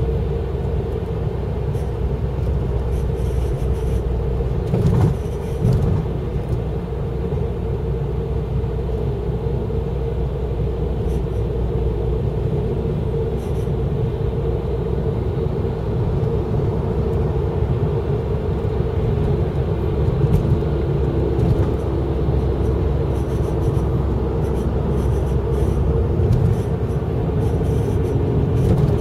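Honda Civic FD2 running, with a steady low rumble and a constant whine throughout; a second, lower steady tone joins about two-thirds of the way through. This is the noise the owner is recording as abnormal.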